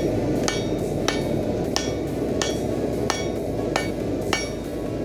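Hand hammer striking 2 mm sheet metal on an anvil while forging, about eight blows roughly two-thirds of a second apart, each with a short metallic ring. A steady rushing noise runs underneath.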